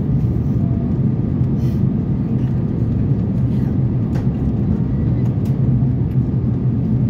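Steady low roar inside the passenger cabin of an Airbus A350-900 in flight, the mixed noise of its Rolls-Royce Trent XWB engines and the airflow over the fuselage.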